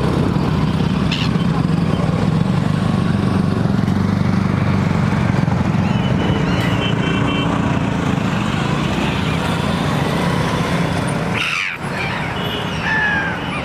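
A steady, loud low engine rumble, with a few short gull calls breaking through above it, around the middle and near the end.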